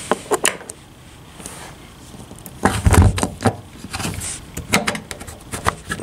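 Clicks and knocks of a new plastic-housed sliding-door wheel unit being pushed and fitted into its slot at the bottom of a wooden sliding door, with a heavier knock about three seconds in.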